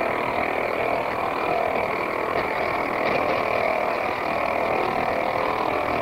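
The 'woodpecker' jamming signal, attributed to Cuba, received off the 40-metre ham band on a shortwave (HF) radio: a distinctive electrical pulsing noise that runs steadily without a break. It is a deliberate jamming transmission that covers the voice portion of the band.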